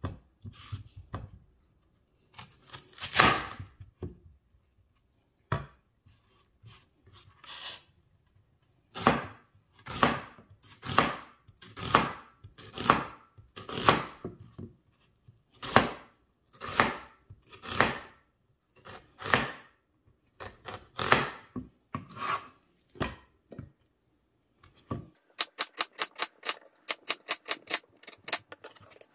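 A chef's knife slicing through a raw onion on a plastic cutting board. The cuts are separate, about one a second, each a short slice ending against the board. Near the end comes a quicker run of sharp knife taps.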